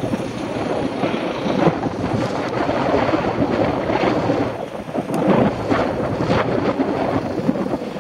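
Wind buffeting the microphone of a camera on a moving bicycle: a loud, continuous rumble with the road and traffic noise of a city street mixed in.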